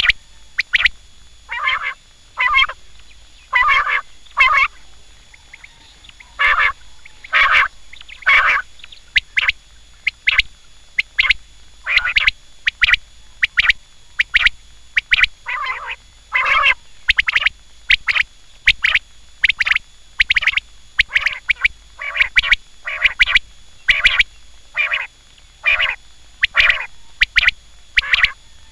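Quail calling: short, sharp call notes repeated over and over, often in quick groups of two or three, about one to two calls a second.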